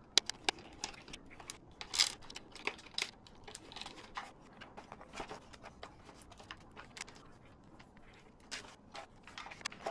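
Irregular small clicks and taps from a screwdriver and hands working on the plastic body of an RC car while its small bolts are being removed.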